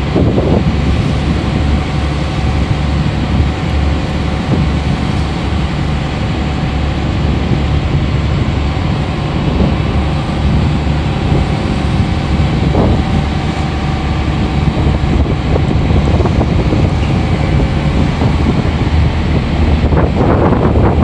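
Strong wind buffeting a phone microphone on the deck of the support vessel YF2125, with the boat's engine running steadily underneath.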